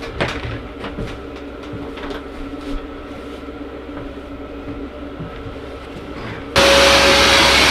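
A few light clicks and knocks of handling, then about six and a half seconds in a Vevor 1200 W wet/dry shop vacuum switches on abruptly and runs loudly, a steady rush of air with a steady whine.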